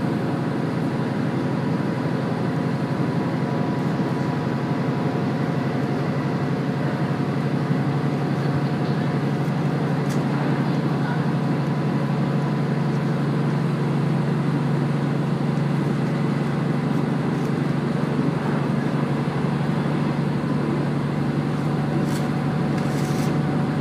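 Diesel railcar running steadily along the line, a continuous even rumble with a low engine hum and faint steady whining tones above it.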